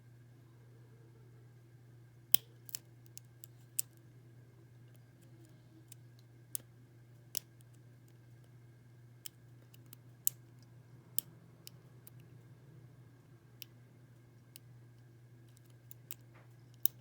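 Lock pick and tension wrench working the pin stack of a First Watch six-pin padlock: irregular sharp metallic clicks as pins are lifted and set, over a steady low hum.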